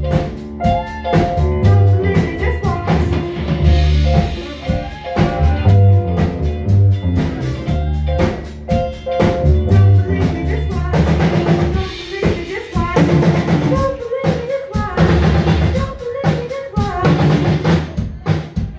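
Live band playing: electric guitars over a drum kit with a steady beat.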